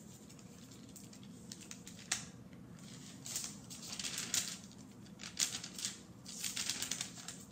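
Paper rustling as the pages of a book are turned and handled, in a run of short crisp rustles over several seconds, against a faint room hum.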